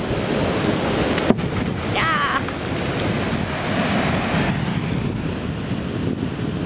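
Fast-flowing river water rushing over rocks, a steady noise with wind buffeting the microphone. There is one sharp click about a second in.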